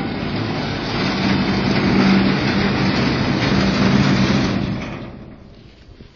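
An engine running with a steady low hum under broad noise. It swells over the first two seconds or so and fades away about five seconds in.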